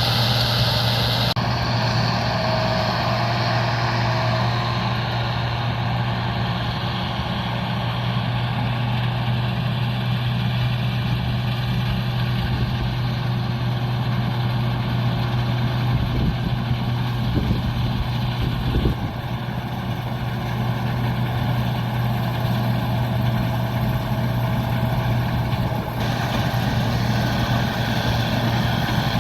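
Combine harvester running steadily while cutting soybeans: a constant deep engine drone with a low hum. A couple of brief knocks come about two-thirds of the way in.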